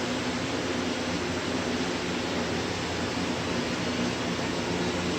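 Steady mechanical hum of a running machine with an even hiss, unchanging throughout.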